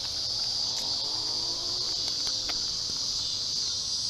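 Insect chorus chirring steadily at a high pitch, with no break.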